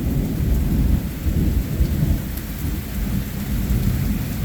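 Heavy rain falling in a thunderstorm, with a low, continuous rumble of thunder underneath.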